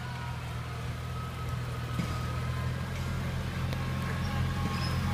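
Steady low hum of a running motor or engine, growing slightly louder.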